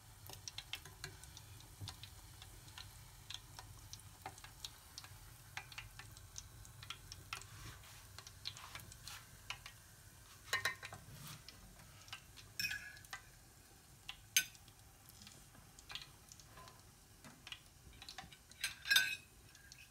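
Hot fat crackling and spitting around a cookie frying in a small enamel pot, with sharp metal clinks now and then from a fork and a long-handled butterfly cookie iron against the pot. The loudest clinks come about halfway through and near the end.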